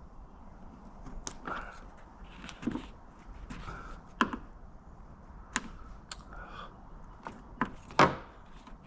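Irregular clicks and knocks of hand work inside a car door: plastic and metal door-handle and lock parts being handled and prised. The loudest knock comes near the end.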